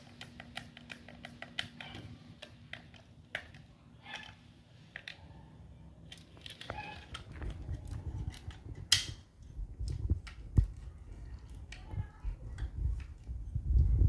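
Irregular clicks, taps and clatter of small hard parts being handled during hand assembly of a homemade PCP air rifle, with one sharper snap about nine seconds in and dull knocks and rumbling handling noise in the second half.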